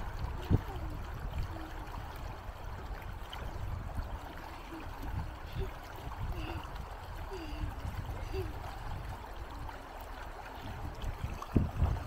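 Shallow river rushing steadily over stones, with a child's feet splashing through the ankle-deep water. A few sharper knocks stand out, the loudest about half a second in and again near the end.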